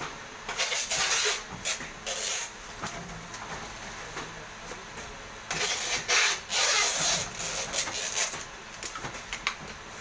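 Vertical oil pouch packing machine running, with scattered ticks and irregular spells of loud hissing, the longest starting about five and a half seconds in and lasting some two seconds.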